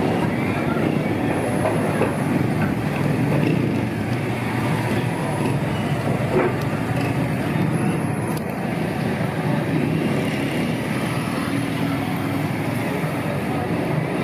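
Street traffic: cars and motorbikes driving past in a steady rumble of engines and tyres.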